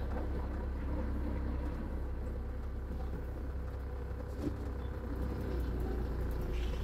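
Diesel engine of a GSRTC deluxe bus running steadily, a low even rumble heard from inside the driver's cab.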